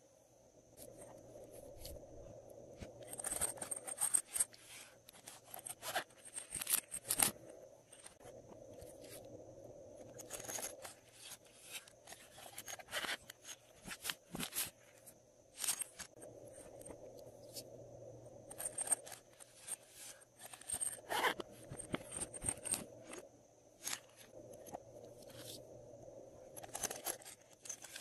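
Hands squeezing and working a soft rubbery toy pouch: irregular clusters of sharp crinkling, crackling and scraping handling noises, some loud, others faint.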